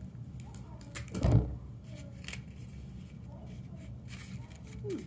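Paper being handled and curled by hand: light rustles and small clicks, with one louder thump about a second in, over a steady low hum.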